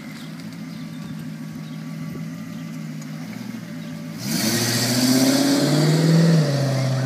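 1992 Lexus SC400's 4.0-litre V8 idling steadily. About four seconds in it is revved up sharply and held at raised speed while it burns off a Seafoam engine treatment.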